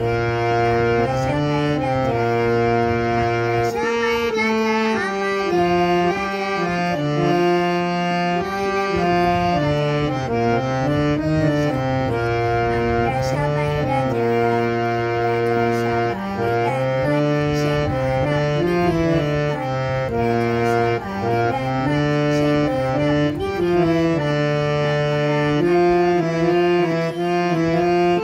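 Harmonium playing a melody in held, stepwise notes, with a young girl singing along.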